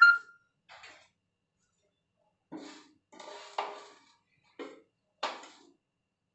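Metal spatula clinking and scraping against a tawa and a plate as cooked tikkis are lifted off the griddle. There is a sharp ringing clink at the start, then several short scrapes and knocks with quiet gaps between them.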